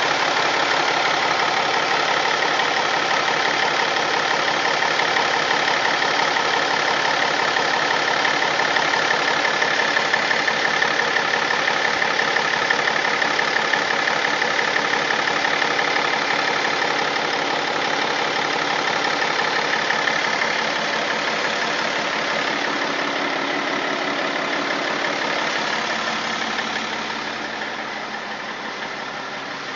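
BMW M57 straight-six diesel engine running steadily, with an extraneous noise whose cause the owner cannot identify. It grows fainter over the last several seconds.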